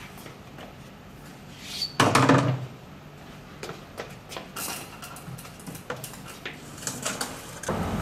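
A large 400 mm PVC pipe section being handled on a concrete walkway. There is one loud bump about two seconds in, then scattered light knocks and scuffs.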